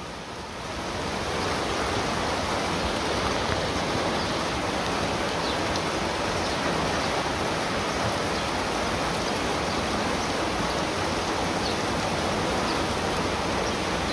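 Hailstorm: rain and hail falling in a steady, even hiss, with a few faint ticks of hailstones striking.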